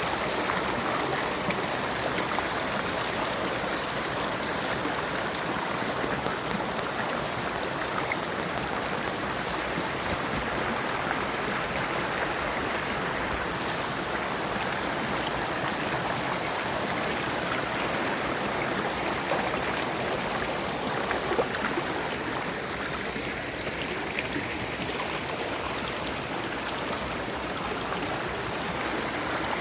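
Flowing water rushing steadily, like a stream, with no distinct events.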